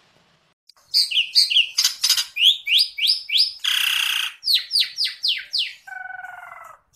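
Pastel yellow lovebird calling: after about a second of quiet, a rapid string of sharp chirps that each fall in pitch, about three a second, broken by a short harsh noisy screech in the middle, then a lower buzzy call near the end.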